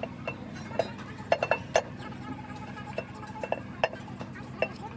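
Light metal-on-metal taps and clinks, about a dozen at an uneven pace, each ringing briefly, over a steady low machine hum.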